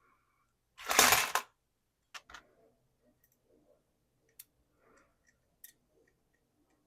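Loose steel nuts and bolts rattling in a parts bin in one short burst about a second in, followed by a few sharp metallic clicks of single pieces being handled.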